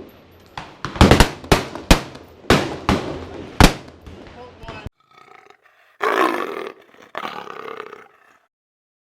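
A rapid run of gunshots, about seven in three and a half seconds, some coming in quick pairs. They are followed by a couple of seconds of loud voices.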